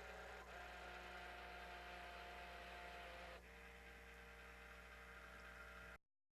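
Faint steady hum with a few higher steady tones, which step to a new pitch with a small click about half a second in and again about three and a half seconds in; it cuts off suddenly near the end.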